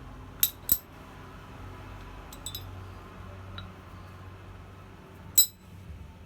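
Sharp metallic clinks of steel striking steel, each ringing briefly at a high pitch. There are about five irregular strikes, the loudest a little over five seconds in.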